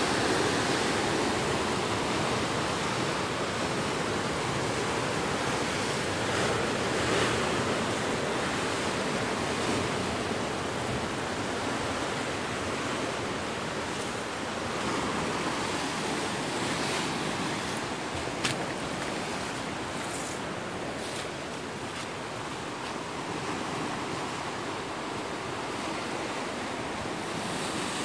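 Heavy surf breaking against the rocks at the foot of a sea cliff: a steady rushing wash of waves that swells and eases slowly.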